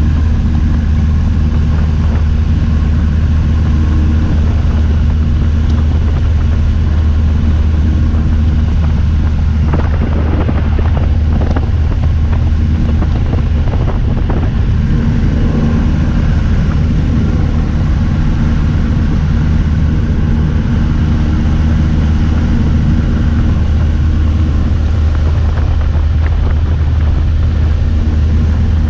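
Small airplane's engine droning steadily, heard inside the cabin with wind rushing loudly through the open door.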